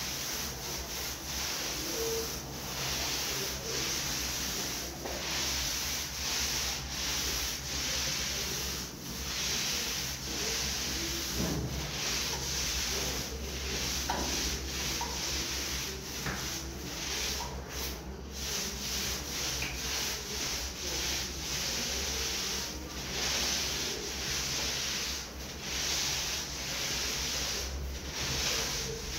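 Paint roller with a high-nap (18 mm) wool cover rolling a full load of wet paint onto a wall: a steady wet swishing, broken by brief pauses at each change of stroke about every second and a half.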